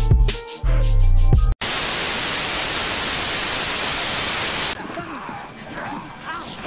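Music with a heavy bass beat cuts off abruptly about one and a half seconds in, replaced by about three seconds of loud, even television static hiss. The static stops suddenly and faint voices from a TV drama clip follow.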